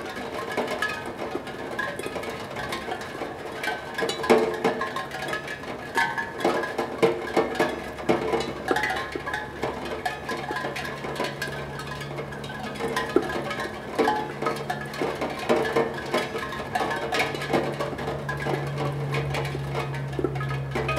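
Raindrops striking a steel tongue drum, setting off irregular, random ringing notes from its tuned tongues. A low steady hum comes in about halfway through and grows toward the end.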